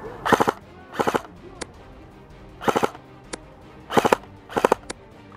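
Krytac CRB airsoft electric rifle firing five short full-auto bursts, each a quick rattle of a few BBs, with gaps of about half a second to a second and a half between them.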